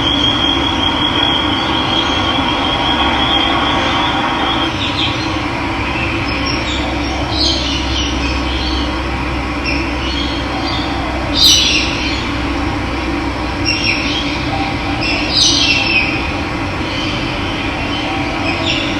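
Running water rushing steadily, with wild birds calling at intervals over it: a high, even trill for the first few seconds, then short high chirps and calls, the loudest about halfway through.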